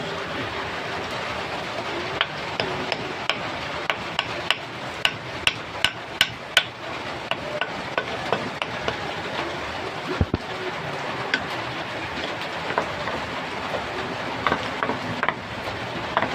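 Hammer striking in a run of about a dozen quick, light blows that come faster toward the end, then a few scattered taps, over a steady background hiss.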